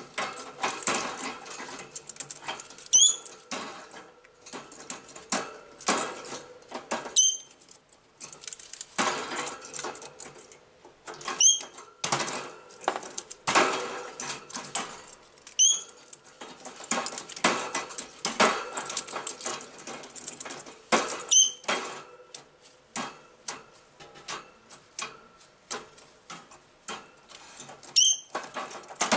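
Green-cheeked conure biting and wrestling a pinecone on its cage's wire floor grate: repeated crunching, clicks and rattling knocks of the cone and beak against the metal grate, with about six short, squeaky chirps from the bird scattered through.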